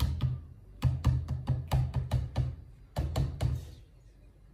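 A utensil knocking rapidly against a mixing bowl as crêpe batter is beaten, with a brief pause, stopping about three and a half seconds in.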